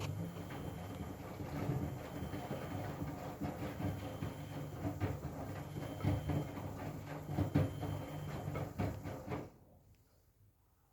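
Miele W Classic front-loading washing machine running, its drum motor humming while the laundry tumbles with irregular knocks and sloshing. It stops about nine and a half seconds in.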